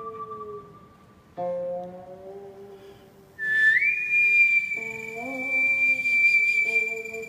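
Chinese xiao mouth whistling through a microphone over a guqin. The guqin plays a few plucked notes that slide in pitch; about halfway through, a long, loud high whistle starts, glides up and holds one note almost to the end, while the guqin plucks on beneath it.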